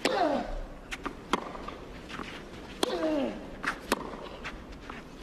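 Tennis rally on clay: racket strikes on the ball about every one and a half seconds. About every other shot comes with a player's loud grunt that falls in pitch, the first right at the start and another about three seconds in.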